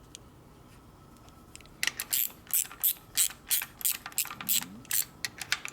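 Hand socket ratchet clicking in quick repeated strokes, about three a second, starting about two seconds in, as a bolt is run in.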